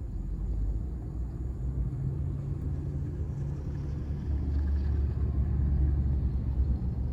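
Strong wind buffeting a car, heard from inside the cabin as a low rumble that swells about four seconds in.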